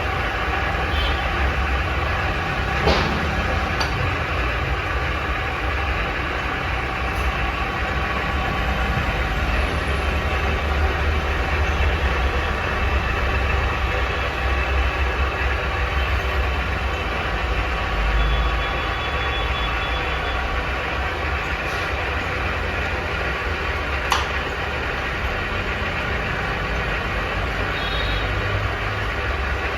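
Heavy-duty all-geared Kirloskar lathe running: a steady low hum with faint, even gear whine above it, and a sharp click twice.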